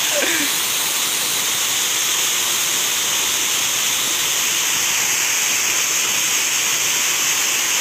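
Waterfall and cascading water rushing over rock: a steady, even hiss of falling water.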